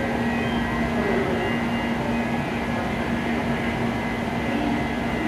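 Steady whirring hum of an N700-series Shinkansen standing at the platform with its on-board equipment running, a constant low tone under it.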